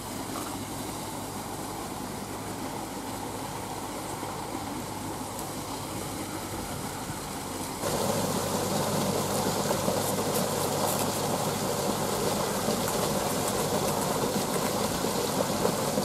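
A steady mechanical hum throughout. About halfway through, a large curved knife starts chopping and slicing through the crown and rind of a ripe pineapple, louder and scratchier than the hum.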